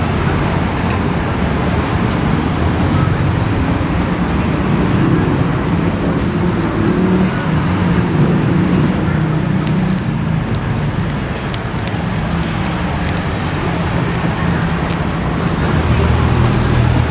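Steady rumble of street traffic. A few light clicks come partway through.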